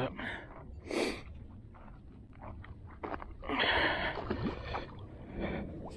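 A large hooked jack splashing and thrashing at the water's surface, a short splash about a second in and a longer, louder one around the middle.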